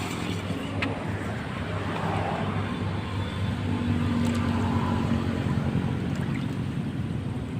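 A motor running steadily with an even low hum, and a single sharp click about a second in.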